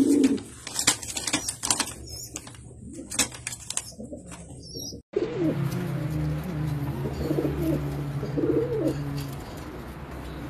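Nok Ghannar pigeons cooing in low, warbling calls. Many sharp clicks and taps come through the first half. There is a brief break about five seconds in, and then the cooing goes on more steadily.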